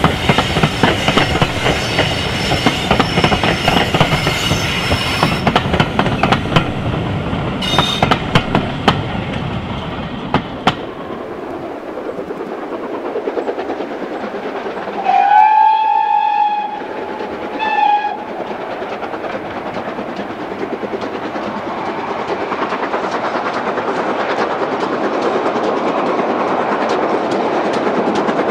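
Railway coaches rolling past, their wheels clattering over the rail joints. Then the steam whistle of a GWR small Prairie tank locomotive, No. 5542, blows twice, a long blast and a short one, and the working engine grows steadily louder as it approaches.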